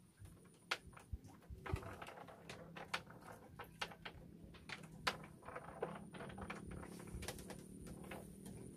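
Scattered light clicks and knocks at an irregular pace, over a faint low steady hum.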